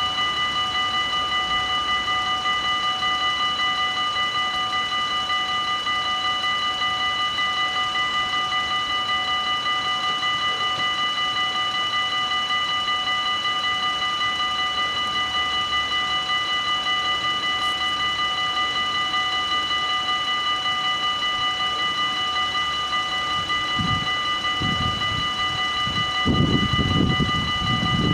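Level-crossing bells of a Dutch automatic half-barrier crossing (AHOB) ringing steadily while the barriers are down. Near the end a low rumble builds in uneven surges as a train approaches.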